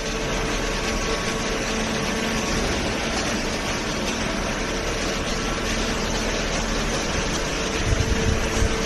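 Hydraulic baler's pump unit running with a steady mechanical hum. Irregular low knocks start near the end.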